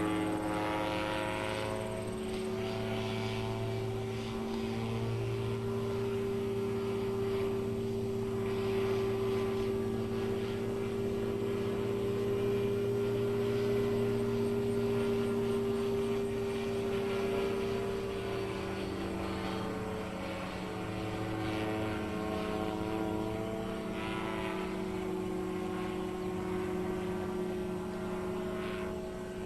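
Titan Tornado light airplane's propeller engine heard from the ground as it flies aerobatics, a steady drone whose pitch drops about 17 seconds in and climbs back around 24 seconds.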